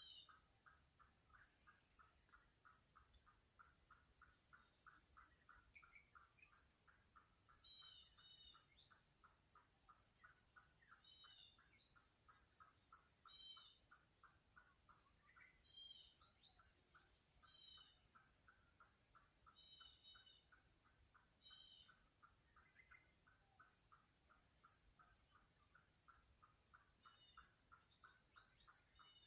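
Faint insect chorus: a steady high shrill from many insects, with a fast pulsing call lower down at about four or five pulses a second. Short high chirps come now and then.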